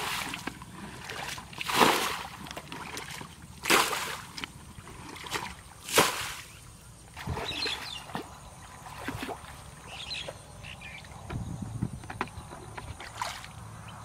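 Muddy water being scooped with a plastic bucket and thrown out of a shallow ditch, one loud splash about every two seconds, then smaller scattered splashes and sloshing in the second half.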